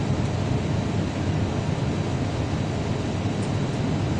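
Steady low rumble inside the cabin of an Airbus airliner taxiing slowly on the apron: jet engines at idle and cabin air noise, even and unchanging.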